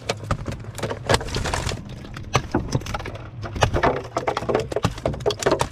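Irregular sharp knocks and clatter against a wooden boat hull as a gill net is hauled aboard and mullet are dropped into the bottom of the boat.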